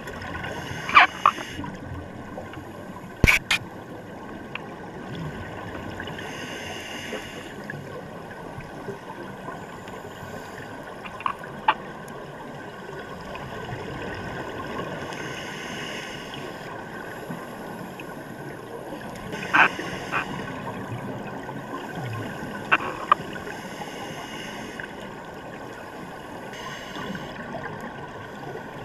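Underwater sound through a GoPro's waterproof housing: scuba divers' exhaled breath bubbling up in bursts every few seconds over a steady muffled background, with a few sharp clicks and knocks.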